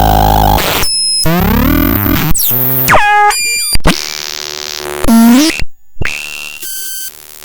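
Home-built DIY analogue synthesizer making harsh electronic noise: buzzy tones that sweep up and down in pitch, stepping tones and a burst of hiss, switching abruptly from one texture to the next with short dropouts.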